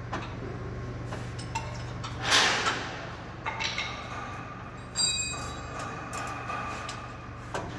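Steady low hum of a mill hall, with a short rushing noise about two seconds in. About five seconds in comes a sharp metal clink that leaves a ringing tone for a couple of seconds.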